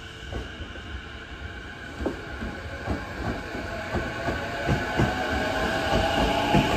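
A JR East E233 series electric commuter train pulling out past the platform, its wheels clacking over the rail joints faster and faster as it gathers speed, with the electric motor whine growing. The sound grows steadily louder as the cars pass.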